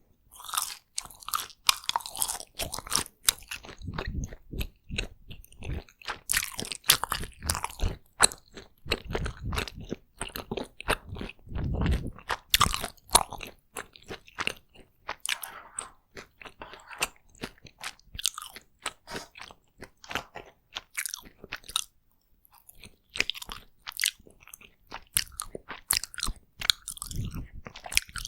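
Close-miked chewing and biting of takoyaki: a dense run of sharp, wet mouth clicks and smacks, with heavier chewing thuds now and then and a brief lull about two-thirds of the way in.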